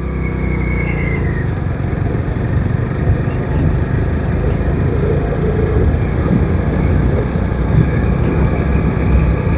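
Road vehicle under way: a steady engine drone with road and wind noise.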